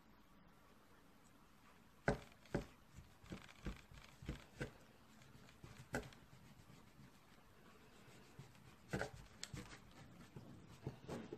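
A sharp kitchen knife cutting slowly through rolls of butter-brushed filo dough: a run of short, light clicks and crunches about two seconds in, and another cluster about nine seconds in, as the blade goes through the thin flaky layers.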